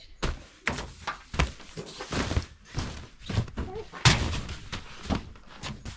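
Camping gear, rolled sleeping pads and sleeping bags, being tossed and shoved into a pickup truck bed: a string of thuds and short scuffs, the loudest about four seconds in.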